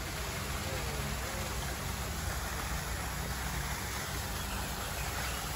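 Steady rushing of water from a small artificial waterfall splashing into a zoo pool, with faint distant voices about a second in.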